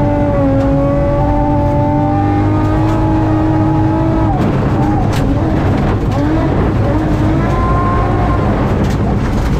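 BMW M3 rally car heard from inside the cabin on a gravel stage: the engine is held at high revs for about four seconds, then the revs drop and climb again through lifts and gear changes, over steady gravel and tyre noise with a few sharp knocks from stones.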